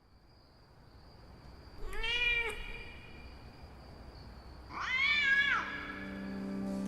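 A cat meowing twice, about three seconds apart, each a short call that rises and falls in pitch.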